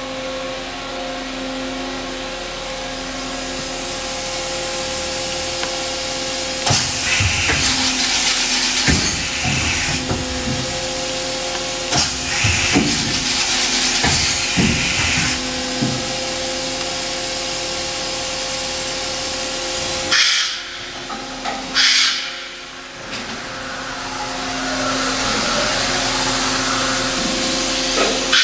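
Daewoo DVC-320 CNC vertical machining center running with a steady hum and fixed tones. From about 7 to 15 seconds its rotary pallet changer swaps pallets, with loud hiss-like rushes broken by clunks. A few more short rushes and knocks come a few seconds later.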